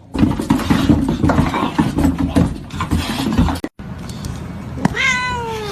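A busy stretch of knocks and rustling for about three and a half seconds, then after a cut a single cat meow near the end that slides down in pitch.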